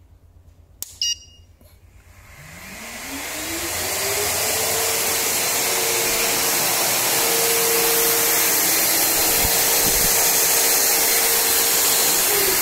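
A drum vacuum cleaner running off a 2000 W pure sine wave inverter. The inverter switches on with a click and a short beep about a second in. The vacuum motor then spins up over about two seconds to a steady whine with a loud rush of air, and it begins to wind down right at the end. It starts because the vacuum was switched on before the inverter.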